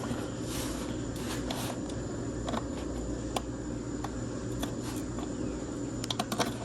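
Faint plastic clicks and scrapes from a Yamaha Raptor 700R headlight bulb being pushed down and twisted in its socket, with a quick run of clicks near the end as it breaks free, over a steady low hum.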